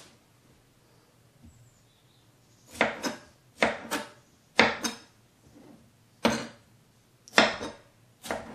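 Chef's knife chopping a tomato on a wooden cutting board: about ten sharp knocks of the blade on the board, starting about three seconds in after a quiet start, some in quick pairs.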